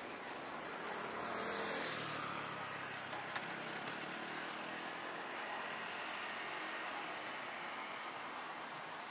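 A car passing close by on a street, loudest about a second and a half in, over steady street noise. There is one sharp tick about three seconds in.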